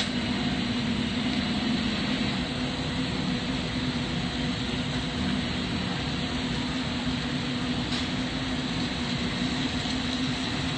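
Steady rushing noise of a glassblowing torch flame together with the shop's ventilation fans, with a constant low hum underneath.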